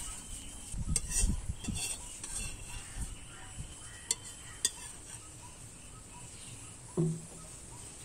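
Metal spatula scraping cooked vegetables out of a hot metal frying pan into a steel bowl: a run of scrapes and clinks in the first few seconds, two sharp clicks a little after four seconds in, and a dull knock near the end.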